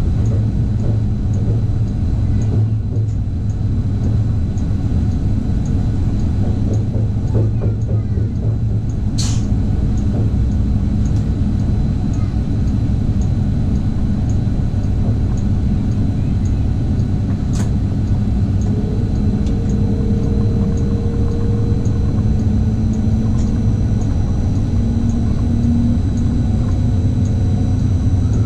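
Regional passenger train running at speed, heard from the driver's cab: a steady low rumble, with two sharp clicks about a third and two-thirds of the way through and a faint drive tone that climbs slightly near the end.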